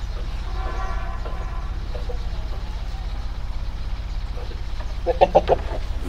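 Short animal calls over a steady low hum: a faint pitched call about half a second in, then a louder, rapidly pulsed call near the end.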